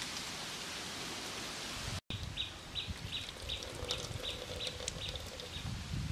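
Wet squelching and dripping as hands squeeze and work soaked grated pulp in a metal tray. After about two seconds a short high chirp repeats about three times a second in the background.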